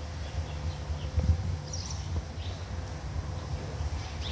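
Outdoor ambience: a fluctuating low rumble on the microphone under a faint steady tone, with a few short, faint high chirps.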